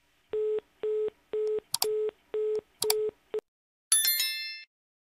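Telephone busy signal: six short beeps of one low tone, about two a second, with a couple of clicks among them. About four seconds in, a short bright bell-like ding.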